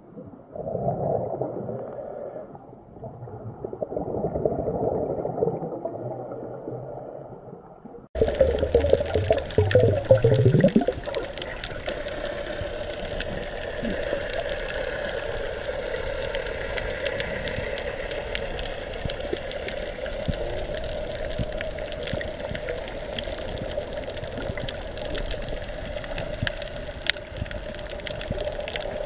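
Muffled underwater water noise: swells of low rushing sound, then an abrupt change about eight seconds in to a steady hiss with a low hum running under it.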